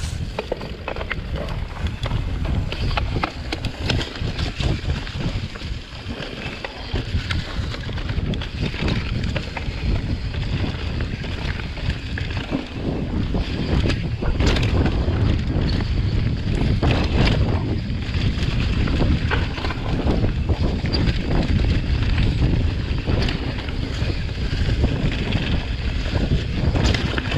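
Wind rumbling on the microphone of a mountain bike rider's camera while riding a leaf-covered dirt trail. Many short clicks and knocks come from the bike rattling over the rough ground.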